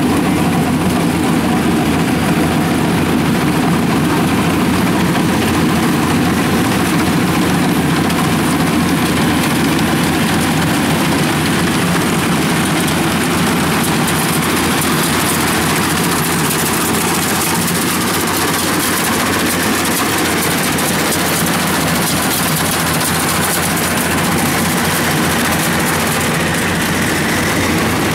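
Tracked rice combine harvesters running steadily as they harvest in a wet paddy field: a loud, even engine drone that does not let up.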